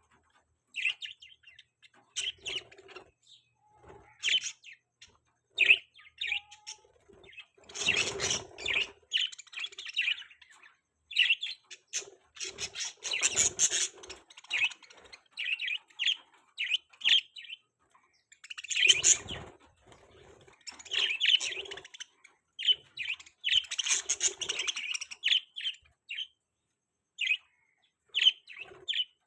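Budgerigars chirping and chattering: many short, high calls in irregular clusters, with three louder, noisier bursts spread through.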